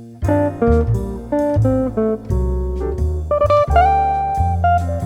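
Background jazz music: plucked guitar playing a melody over a bass line.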